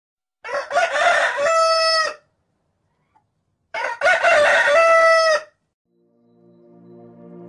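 A rooster crowing twice, each crow about two seconds long and ending on a held note. Music fades in near the end.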